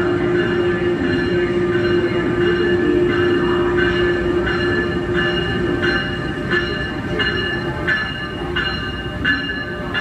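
NJ Transit ALP-46A electric locomotive passing with its train, a steady electric hum that fades after about six seconds as the locomotive goes by. The passenger cars' wheels then clatter over the rail joints about twice a second.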